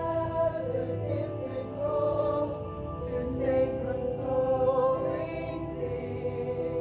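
Music with long held notes and slowly shifting chords, no speech.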